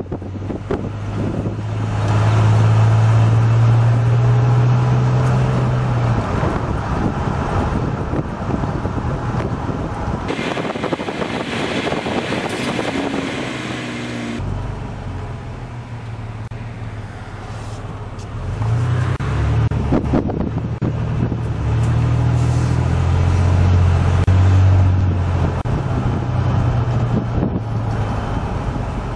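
1999 GMC Sierra's 4.3-litre Vortec V6 running through a Gibson 3-inch cat-back exhaust, heard from inside the cab in mild low-speed driving. The engine note rises as the truck pulls away about two seconds in, goes quieter in the middle as it slows to a stop, then builds again as it accelerates off.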